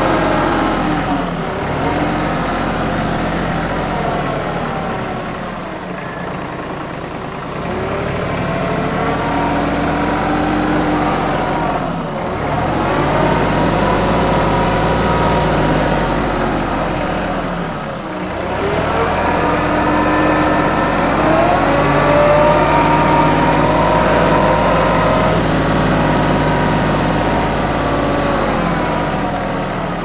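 TYM 2515H compact tractor's diesel engine running at working speed while the tractor digs at trees. Its pitch sags and recovers several times as load comes on and off.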